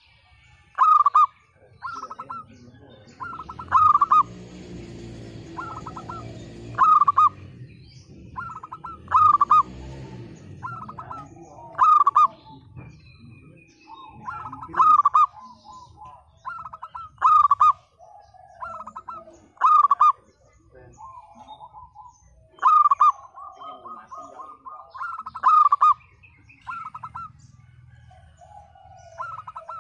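Zebra dove (perkutut) calling: repeated short, pulsed cooing phrases, one every second or two, with the loudest bursts every two to three seconds. A low rumble passes behind it between about three and ten seconds in.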